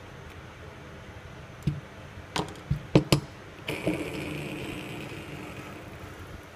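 Metal parts of a wireline wheel hub knocking and clicking together as they are handled, about five sharp knocks in quick succession, then a longer metallic ring that fades out over about two seconds.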